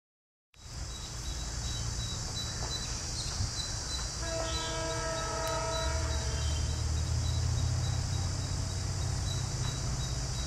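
EMD WDP4 (GT46PAC) diesel-electric locomotive's 16-cylinder two-stroke engine rumbling as it accelerates, growing louder about six seconds in. Its horn sounds one chord about four seconds in, lasting about two seconds.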